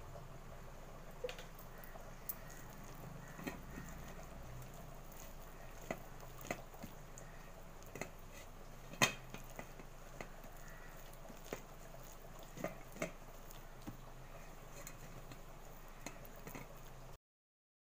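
A hand mixing a wet fish-fry masala paste on a stainless steel plate: scattered squelches and sharp clicks of fingers against the steel, the loudest about halfway through. The sound cuts off suddenly near the end.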